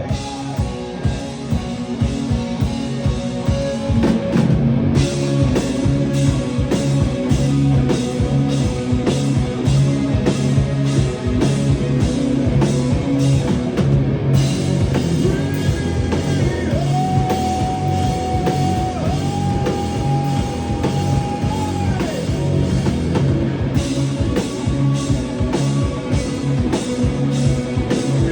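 Rock band playing live: drum kit, guitars and bass in a driving rhythm, with cymbals entering about five seconds in. Two long held melody notes come through in the middle.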